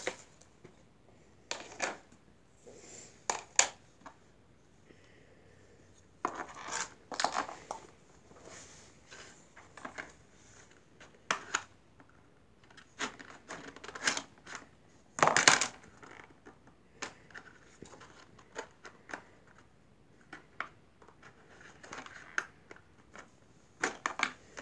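Plastic toy playset pieces being handled and pressed together on a floor: scattered clicks, taps and scrapes, with a louder clatter about fifteen seconds in.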